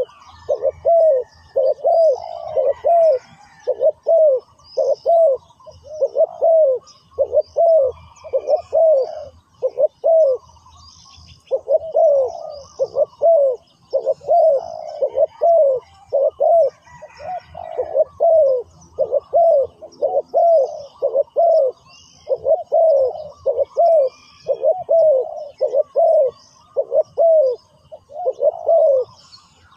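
Spotted dove cooing repeatedly in runs of several short arched coos with brief pauses between the runs, a decoy bird calling to lure wild doves. Faint high chirps of small birds behind it.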